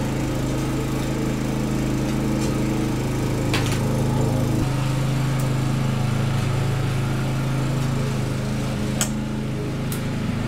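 Lawn mower engine running steadily, its note shifting about halfway through. A few light clicks sound over it.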